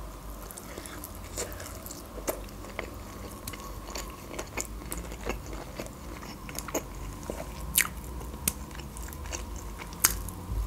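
A person chewing and biting grilled chicken: a string of small wet mouth clicks and crackles, with a few sharper crunchy bites, the loudest about eight seconds in and near the end.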